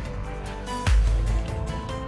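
Background music: held notes over a deep bass hit and a drum stroke about a second in.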